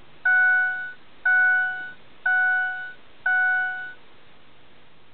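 Ford Super Duty truck's dashboard warning chime sounding with the key on before cranking, four evenly spaced chimes about a second apart, each fading out, stopping about four seconds in.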